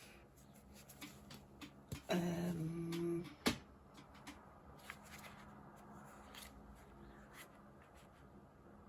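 Small clicks and taps of nail-polish supplies being handled, with a short hummed 'mm' about two seconds in and a sharp click at about three and a half seconds, over the steady hum of a room fan.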